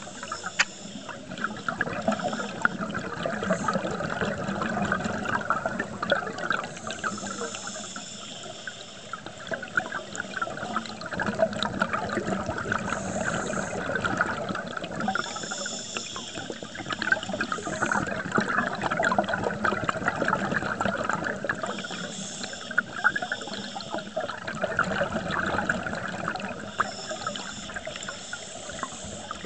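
Scuba regulator exhaust bubbles bubbling and crackling underwater, heard through a camera's underwater housing, with louder hissing bursts every few seconds as a diver exhales.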